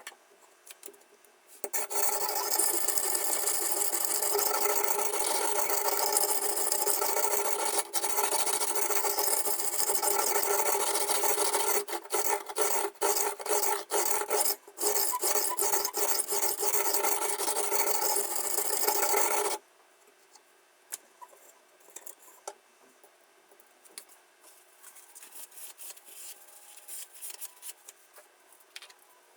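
Sharpening stone on a toohr 1.2 guided knife sharpener rasping along the edge of a kitchen knife. It goes in one long steady run of strokes, turns choppier after about twelve seconds, then stops abruptly about two-thirds of the way in. Only faint light clicks follow.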